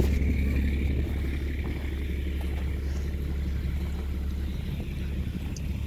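Thomas C2 school bus engine idling steadily, a low even rumble with a faint high whine above it.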